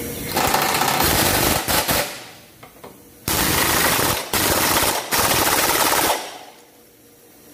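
Pneumatic impact wrench hammering as it tightens a lower control arm mounting bolt on a Mazda CX-5. It runs in two long bursts: one starting about half a second in and lasting about a second and a half, the other starting at about three seconds and running nearly three seconds with a couple of brief let-offs.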